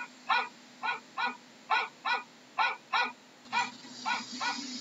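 A dog barking over and over in a steady run, about two barks a second.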